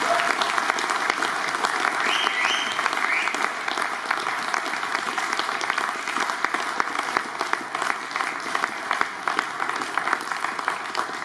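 Audience applauding, the clapping slowly thinning out and growing quieter.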